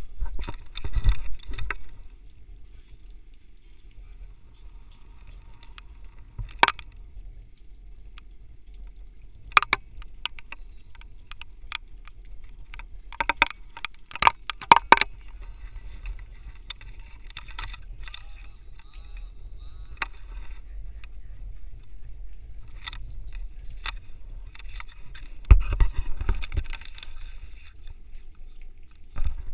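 Handheld camera noise over a steady low rumble, with scattered sharp clicks and knocks, and louder handling bursts at the very start and about 25 seconds in.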